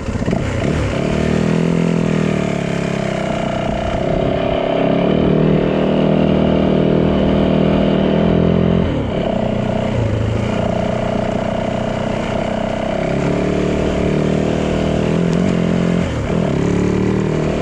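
Yamaha dirt bike engine running under way, its pitch rising and falling with the throttle. The note drops off briefly about nine seconds in and again near the end, then picks back up.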